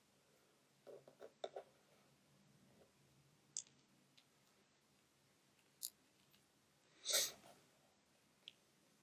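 Sparse faint clicks and taps: a quick cluster of three about a second in, single clicks every couple of seconds, and a slightly longer, louder tap about seven seconds in.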